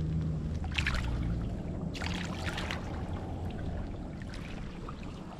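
A small bream splashing in shallow water as it is released by hand, in short bursts about a second in and again around two seconds in, over a steady low rumble.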